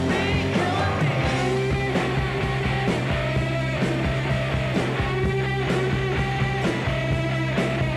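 Background rock-and-roll music with guitar and a steady beat.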